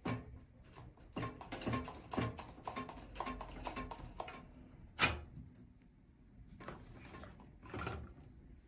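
Faint handling sounds: a rough series of light knocks and rustles over the first four seconds, one sharp click about five seconds in, and two short rustles near the end.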